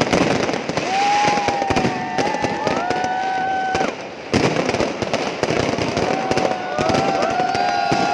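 New Year fireworks going off in quick succession, a dense run of bangs and crackles, with long steady whistling tones over them.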